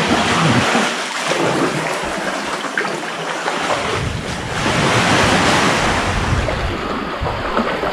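Seawater splashing and lapping around an inflatable kayak and its paddle blades as it is paddled out of a sea cave. A steady hiss of water runs throughout, and from about halfway a low rumble of wind on the microphone joins in.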